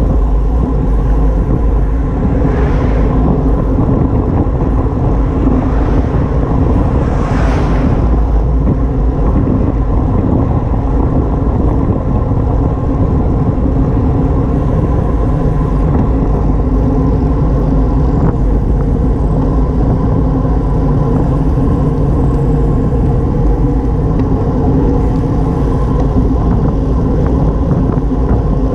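Steady wind rush over the microphone and road noise from a bicycle moving at speed. Two brief hissing swells come about three and seven seconds in.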